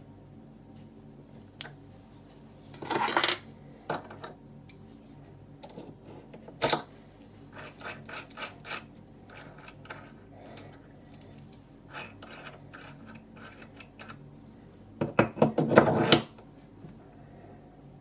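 Small metal parts clinking and clattering as they are handled and fitted on a mini metal lathe. The sound is scattered light clicks, with a burst of clatter a few seconds in, a sharp single clink near the middle, and the loudest rattle near the end.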